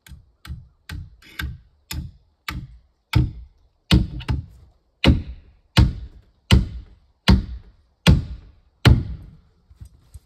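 A series of heavy blows on wood, about fifteen at a steady pace that slows from about two a second to a little under one a second, each with a short deep boom, growing louder over the first few seconds. A few lighter taps follow near the end.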